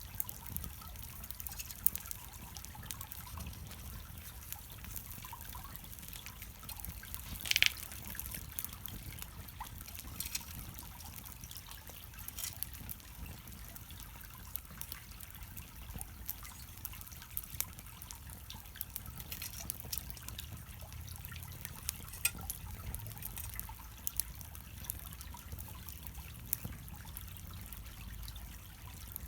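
Small wood fire crackling, with scattered sharp pops and one louder pop about a quarter of the way in.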